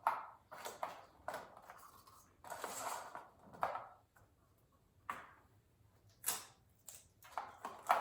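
Craft materials being handled on a tabletop: a string of short, irregular rustles, scrapes and light knocks with quiet gaps between them.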